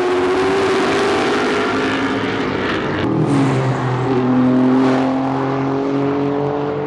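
Prototype race cars passing at speed, one after another, their engines accelerating. The pitch climbs steadily, with an upshift a little over four seconds in.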